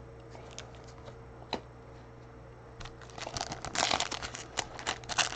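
Trading cards and their packaging being handled: a single faint click about a second and a half in, then a run of rustling and crinkling from about three seconds in.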